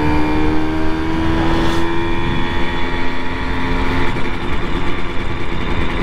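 Simson moped's two-stroke engine running under way at a steady cruise. Its note creeps up slightly in the first second, then holds. Wind rumbles on the helmet microphone underneath.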